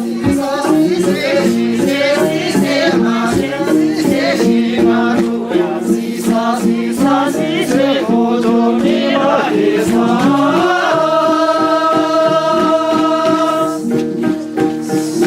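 Music for a Sherpa dance: voices singing with vibrato over a repeating plucked-string tune and a rhythmic rattling beat, with one long held sung note about eleven seconds in.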